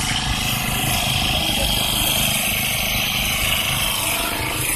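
Small engine of a motorised rice-paddy weeder running steadily.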